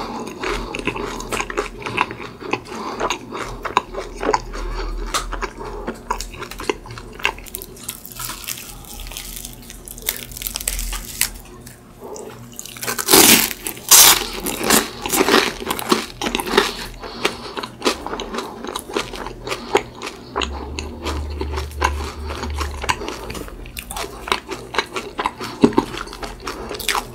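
Close-miked eating of crispy croffles (croissant-dough waffles): crunchy bites and chewing with crackly mouth sounds. About halfway through comes a louder burst of crunching.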